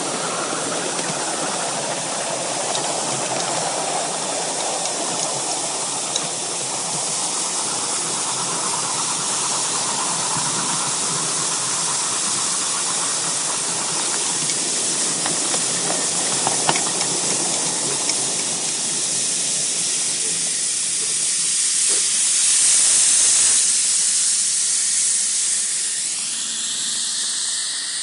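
5-inch gauge live-steam model of a C2 Atlantic locomotive running along the track with a steady hiss of steam. It slows to a stop about three quarters of the way in, and the hiss grows loudest as steam blows off from the top of the boiler.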